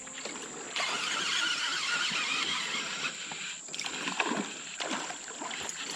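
Water splashing and sloshing around a kayak as a hooked bass is fought up to the boat, with a run of rushing splash in the first half and scattered knocks and splashes near the end.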